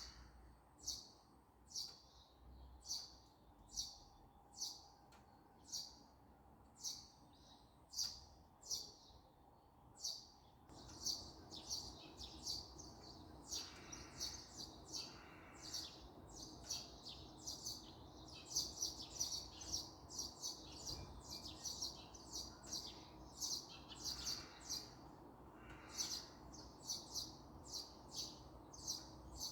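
Small songbirds chirping: one bird repeats a short high chirp about once a second, then about ten seconds in more birds join with denser chirping over a steady low background hum.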